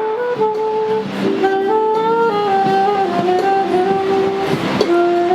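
Saxophone playing a jazzy melody of held notes that step up and down, one note at a time.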